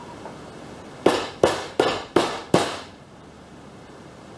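Five quick hammer taps on a mower-deck spindle assembly, about three a second, each with a short ring, seating the bearing shield.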